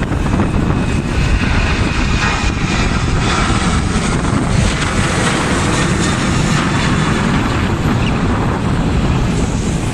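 Boeing 737-800's CFM56 jet engines at takeoff thrust, a loud steady rumbling roar.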